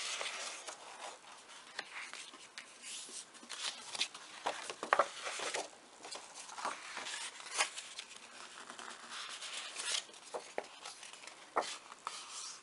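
A sheet of scrapbooking paper being handled and folded along its score lines: irregular rustling and short sharp crackles as the paper is bent and creased.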